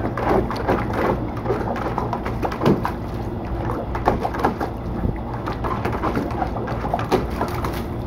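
A small dog paws at shallow water in a plastic kiddie pool, making quick, irregular splashes that settle near the end. A steady low hum runs underneath.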